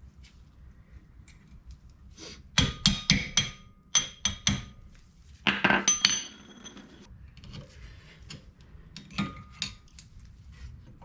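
Metal hand tools striking and clinking against metal suspension parts: quick sharp taps, some with a short ringing note, in three tight bursts from about the third to the sixth second, then two fainter taps near the ninth second.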